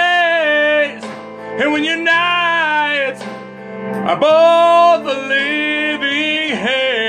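Male lead vocal sung rough and hard over a guitar-driven blues-rock backing, in several long held lines that bend in pitch.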